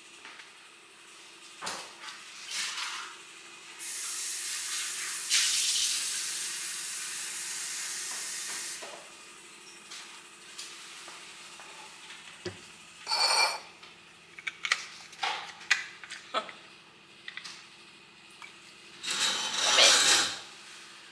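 Tap water running steadily for about five seconds, filling the water tank of an essential-oil diffuser, followed by scattered clicks and clatters as the plastic tank is handled and set back on its base, the loudest of them about a second before the end.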